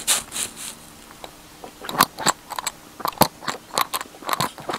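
Mouth sucking on a plastic pipe fitted to the inlet of a Renault 4 distributor's vacuum advance unit, testing it: a faint low hum for about the first second, then a string of short clicks and smacks from about two seconds in. The new unit holds the vacuum and works.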